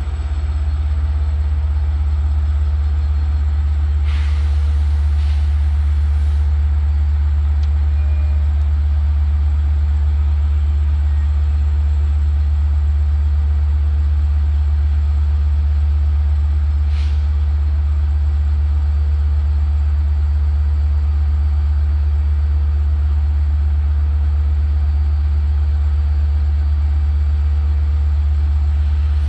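Long Island Rail Road diesel locomotive idling with a steady, loud, low rumble. A short burst of air hiss comes about four seconds in and again, briefer, about seventeen seconds in.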